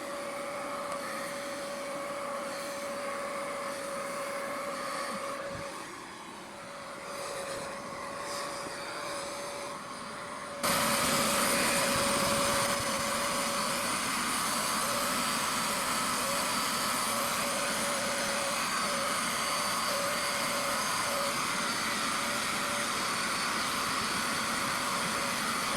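Vacuum motor of a carpet cleaner running steadily with a constant whine. About ten seconds in it jumps abruptly louder.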